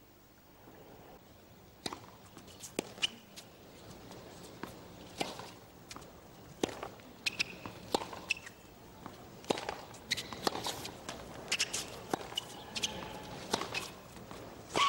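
Tennis on a hard court heard at court level: sharp irregular knocks of ball bounces and racket strikes, mixed with footsteps and short shoe squeaks on the court surface.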